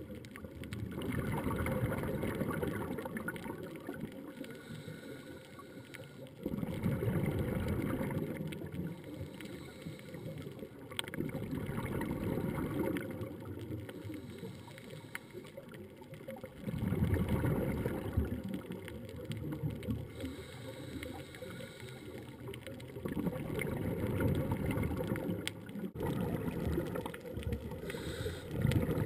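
A scuba diver's exhaled bubbles rumbling and gurgling underwater, in slow swells about every five or six seconds with the breathing, between quieter stretches.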